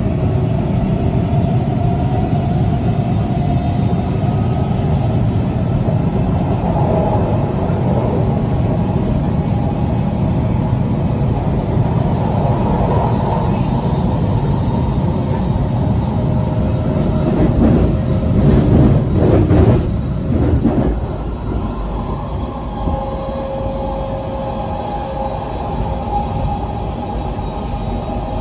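Washington Metro train running above ground, heard from inside the car: a steady rumble of wheels on rails that grows louder for a few seconds about two-thirds of the way through, then settles with a faint steady whine.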